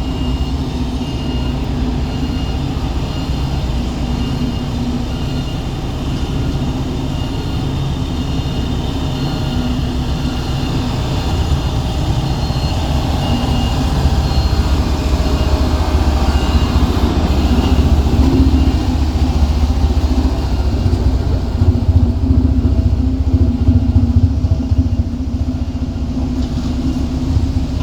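Heavy earthmoving machinery at work: a diesel engine's steady, low running sound with a faint high whine over it, growing louder about halfway through.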